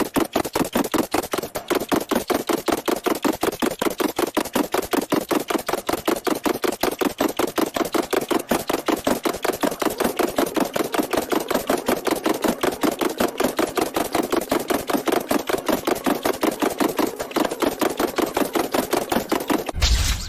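A fast, even run of sharp clicks or knocks, several a second, going on without a break.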